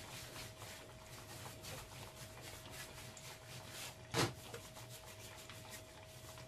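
Hand brushing and rubbing flour across a silicone baking mat while rolling dough: soft, repeated scraping strokes, with a single knock about four seconds in. A faint steady hum sits underneath.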